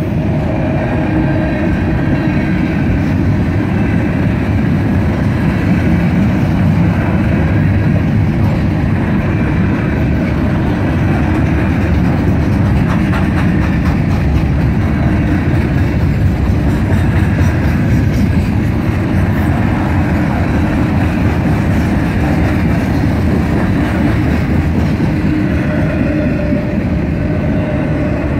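Cars of a Norfolk Southern mixed freight train rolling past: a steady, unbroken rumble of steel wheels on the rails.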